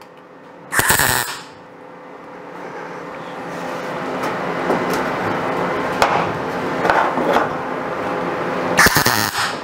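Two short MIG tack welds on the thin sheet-metal roof seam: one brief burst about a second in, another near the end. A steady hum builds slowly in between.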